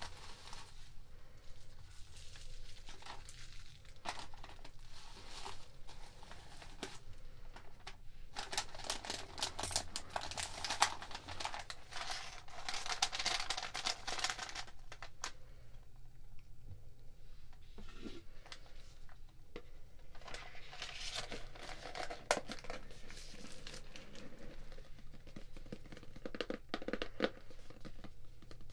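Tissue paper and paper packaging crinkling and rustling in several bursts as a small jewelry box is unwrapped and handled, with a few sharp clicks of fingers on the box.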